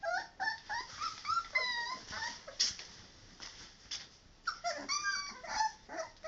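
Three-week-old puppies whimpering and yipping: many short high-pitched whines, some falling in pitch, with a brief lull in the middle before they start again.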